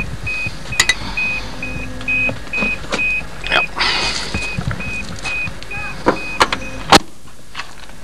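Pickup truck's warning chime beeping steadily, about two and a half beeps a second, with clunks and rustling as someone moves at the open driver's door. Near the end the chime stops and a loud bang follows, the door slamming shut.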